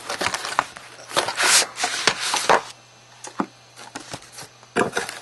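Cardboard box and its packing being handled as the contents are pulled out: rustling and scraping, densest in the first half, then a few scattered light knocks and clicks.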